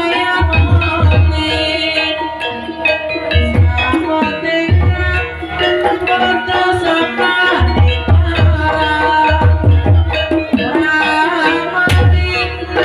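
Javanese gamelan music: metallophones sustain ringing notes while a hand drum, the kendang, beats in clusters of low strokes.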